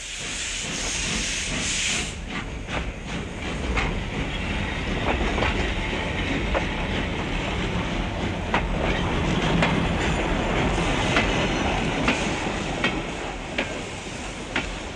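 Freight train rolling along the tracks: a steady rumble with the wheels clicking unevenly over rail joints. A hiss sits on top of it for the first two seconds.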